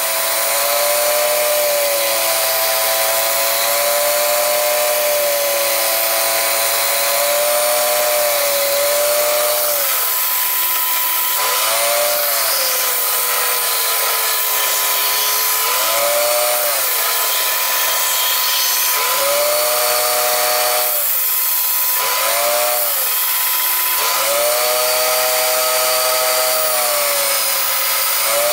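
Electric power tool cutting wood: a steady high motor whine that sags in pitch again and again as the cutter meets more load and recovers as it eases off, over a continuous cutting rasp.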